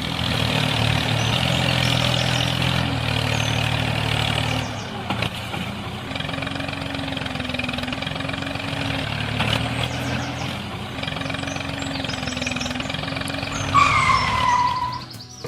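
Tractor engine running steadily, its note shifting about five seconds in. A loud, short falling tone comes near the end.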